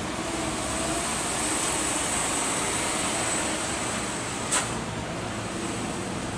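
Roadside traffic: a steady run of vehicle engine and road noise as a pickup moves past, with one sharp click about four and a half seconds in.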